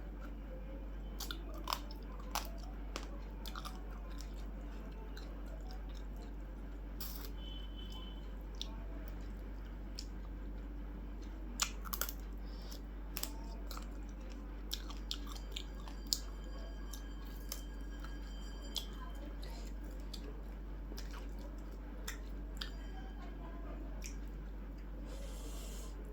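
A person chewing food close up, with scattered short crisp crunches and clicks, over a steady low hum.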